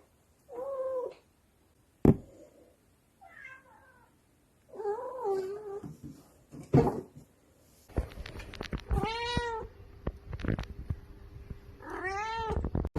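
Domestic cats meowing: about five separate meows, each rising and falling in pitch, the clearest two near the end. A sharp knock comes about two seconds in.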